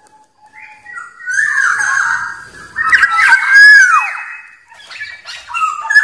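Black-naped oriole (kepodang) calling: three whistled phrases with sliding pitch. The loudest phrase comes about three seconds in, and shorter notes follow near the end.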